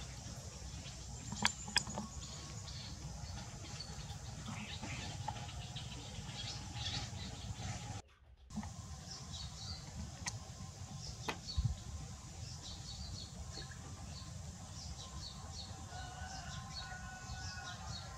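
Baby macaques eating corn: light clicks and taps from handling and chewing, scattered faint high squeaks, and a wavering coo-like call near the end, over a steady low background rumble. The sound cuts out briefly near the middle.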